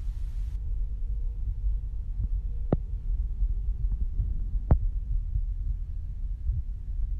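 Passenger train running along the track, heard from inside the carriage: a steady low rumble with two sharp knocks in the middle.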